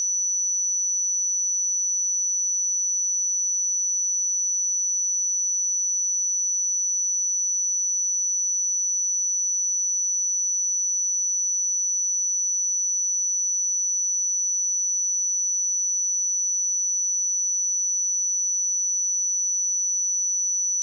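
A pure 5944 Hz sine-wave test tone, a single steady high-pitched whistle at constant level.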